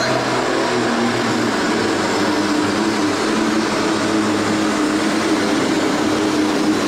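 Pulling tractor's engine running hard at a steady pitch under load as it drags a weight-transfer sled along the dirt track.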